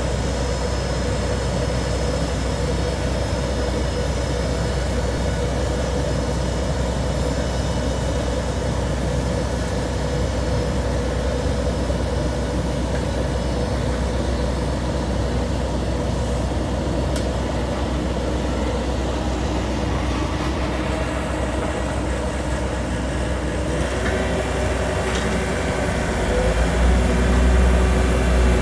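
Heavy diesel paving machinery running steadily: an asphalt paver and the tank truck feeding it. Near the end a Hamm tandem asphalt roller takes over with a louder, deeper, throbbing rumble.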